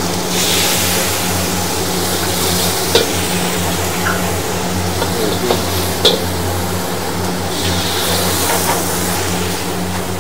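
Prawns and meat frying in a hot carbon-steel wok over a gas flame, sizzling steadily with two louder surges of sizzle, one at the start and one near the end. A steel ladle stirs and knocks sharply against the wok a few times, over a steady low hum.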